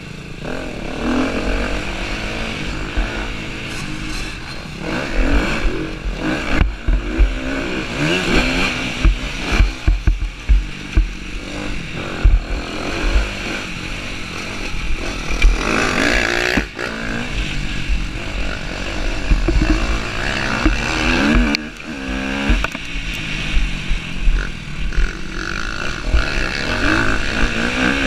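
Husqvarna TC250R motocross bike's engine revving up and down through the gears as it is ridden hard over a dirt track, with wind rumbling on the helmet-mounted microphone and frequent knocks from the bumps.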